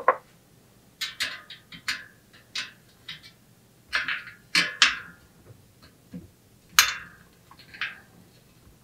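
Light metallic clicks and clinks of tools and bicycle wheel parts being handled, about a dozen short, separate strikes scattered over several seconds, a few with a brief ring.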